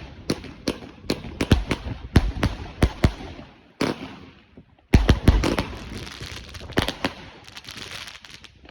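'Essence of Fire' consumer firework going off: a rapid string of sharp bangs, about two or three a second, over a crackling hiss. It goes almost quiet about four seconds in, bursts again with a dense cluster of bangs, then thins out to crackling near the end.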